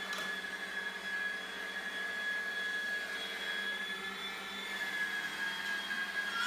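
Electric meat grinder with a grater-drum attachment running, shredding raw potatoes: a steady motor whine over a low hum, the pitch sagging slightly a little before the end as it takes load.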